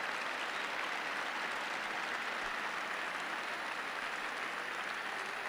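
Audience applauding steadily, a dense even clapping without letup.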